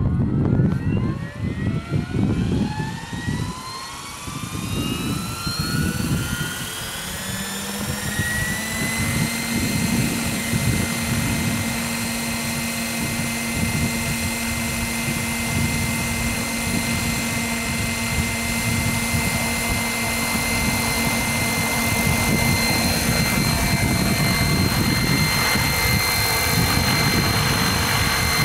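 Radio-controlled scale Bell 222 model helicopter (Hirobo Sceadu mechanics) spooling up from a standstill: the drive and rotor whine rises in pitch for about nine seconds, then holds steady at full head speed, and the model lifts off into a hover near the end. Wind buffets the microphone with a gusty low rumble.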